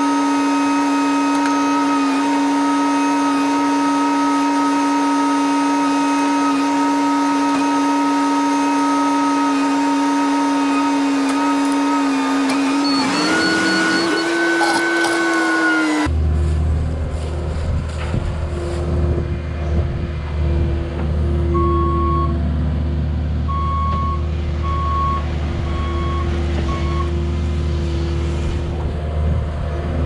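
Diesel engine and hydraulics of a compact construction machine running at steady high revs, with a constant whine that rises in pitch briefly about halfway. After a cut, a heavier, deeper engine rumble from a Cat mini excavator at work, with a string of short beeps a few seconds later.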